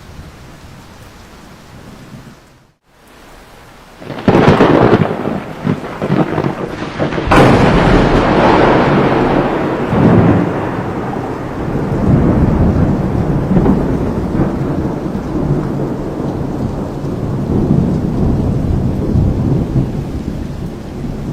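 Thunder in a monsoon storm: a sudden loud crack about four seconds in and another about seven seconds in, each followed by a long rolling rumble that slowly fades, over steady rain.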